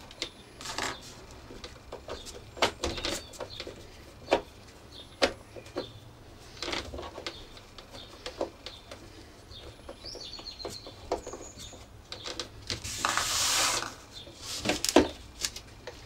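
Irregular clicks and knocks of a small screwdriver and screws working on a vacuum cleaner's plastic cowling, with a short scraping rustle about thirteen seconds in.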